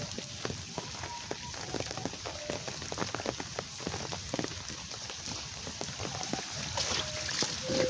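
Heavy rain pouring down, a dense, steady patter of drops striking surfaces.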